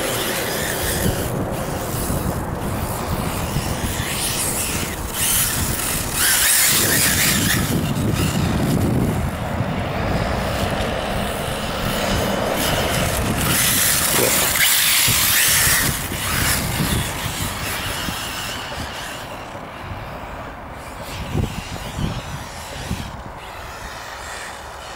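Wind buffeting the microphone, with an XTM Rail 1/8-scale brushless RC buggy driving on loose sand. The buggy and tyre noise get louder in two stretches, about six seconds in and again around thirteen to sixteen seconds, and everything fades toward the end.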